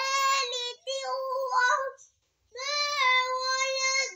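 A young boy chanting in melodic Quran-recitation style, with his hands cupped to his ears. He sings a phrase of held notes, breaks off for half a second at about two seconds in, then holds one long steady note that falls away near the end.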